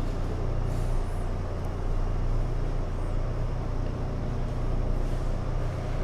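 Steady low droning hum with an even background rumble, unchanging throughout.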